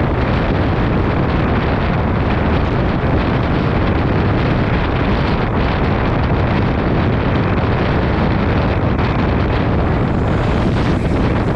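Heavy rain falling steadily, a loud, dense and even rush of noise with no breaks.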